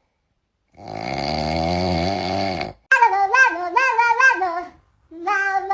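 A low, drawn-out pitched groan lasting about two seconds, then a high warbling voice sliding up and down in pitch in two short phrases: meme sound clips.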